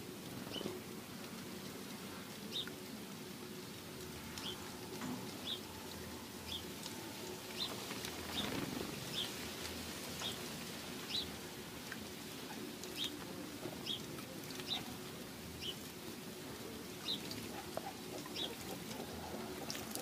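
House sparrows chirping, short single chirps repeated about once a second, with light splashing from a sparrow bathing in a shallow water basin.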